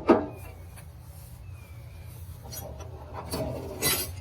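A steel tool box drawer being handled as it comes out of the chest. There is a sharp metal clunk right at the start, then a rattling, scraping slide that ends in a loud clank near the end.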